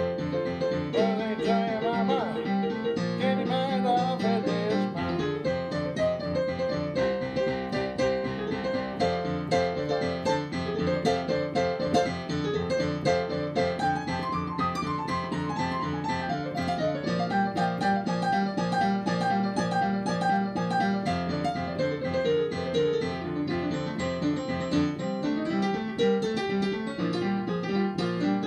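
Digital piano playing a boogie-woogie piece, a repeating left-hand bass figure under right-hand runs.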